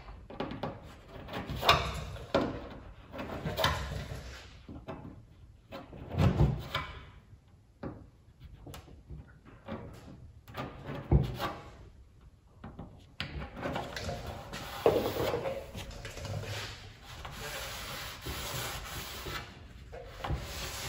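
Hand deburring tool scraping the edges of drilled rivet holes in thin aluminium aircraft skin: a series of short, separate scrapes a second or two apart. About 13 seconds in, this gives way to a steady rubbing as a cloth wipes the deburred holes clean of swarf.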